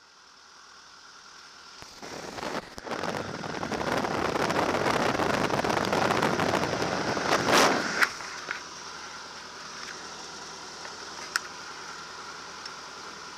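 Marquart MA-5 Charger biplane's engine running, with the propeller blast buffeting an outside-mounted camera microphone: a loud, crackling rush builds for several seconds, then drops back to a steadier, quieter run about eight seconds in.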